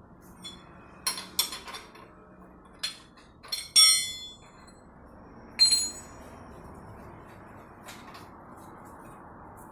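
Metal tools and metal parts clinking against each other in a handful of sharp clinks with short ringing tails, the loudest just under four seconds in, during work on unbolting a car's exhaust front pipe.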